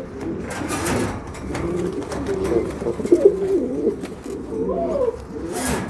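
Pouter pigeons cooing in low, wavering, repeated notes, with a brief rustle or clatter of the wire cage about a second in and again near the end as a bird is handled into it.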